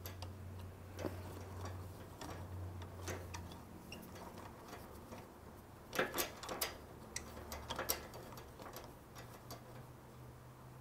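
Light metallic clicks and ticks of a T-handle hex key turning the pad retaining bolt as it is screwed back into a Brembo four-piston brake caliper, with a few louder clicks about six and eight seconds in.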